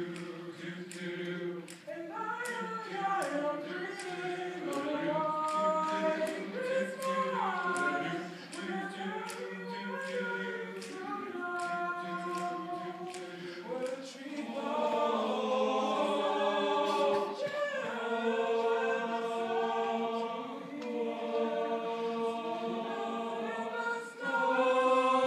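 Male choir singing a cappella in close harmony: several held chords that shift from one to the next, getting louder and fuller a little past halfway.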